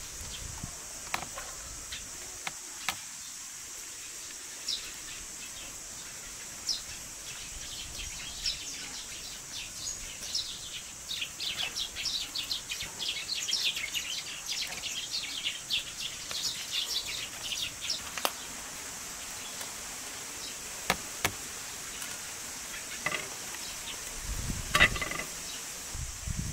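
Light taps and scrapes of a wooden spoon on a plastic colander as cooked, drained rice is spooned into a pot, with a louder knock near the end. Behind it runs a steady high insect drone, with a run of quick bird chirps through the middle.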